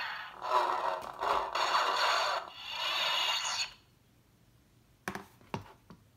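Hasbro electronic Mace Windu toy lightsaber playing its sound effects through its small speaker: a noisy buzzing effect that swells and dips several times, then cuts off sharply about four seconds in. A few light clicks follow near the end.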